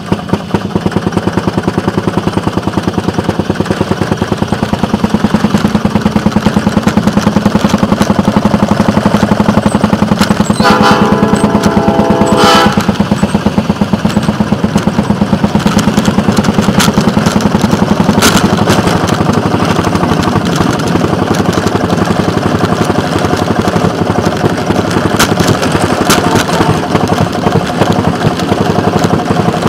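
Small gasoline engine of a railroad motorcar (speeder) running with a fast, even beat, idling at a stop and then pulling away slowly along the track. A horn sounds for about two seconds near the middle.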